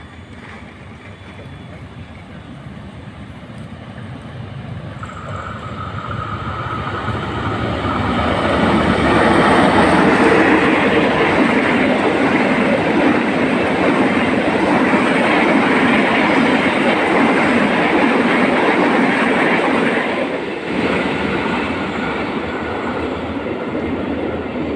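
Passenger train of stainless-steel coaches passing at speed on the rails, growing louder for the first nine seconds or so as it approaches. It then holds as a steady loud rush of wheels on track while the coaches go by, easing a little near the end.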